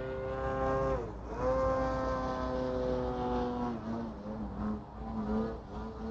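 FPV racing quadcopter motors whining. The pitch dips sharply about a second in and climbs straight back, then holds steady. From about four seconds in it drops lower and wavers as the throttle changes.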